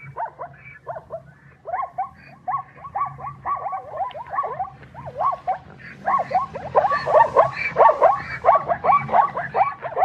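Zebra calling: a rapid string of short, yelping barks, each falling in pitch, about three a second, growing louder in the second half.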